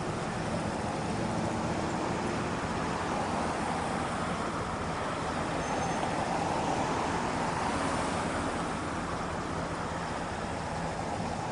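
Street traffic noise with a steady low hum. A car passing close by makes the noise swell a little around the middle.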